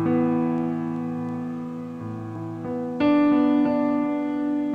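Background music: sustained keyboard chords, with a new, louder chord struck about three seconds in.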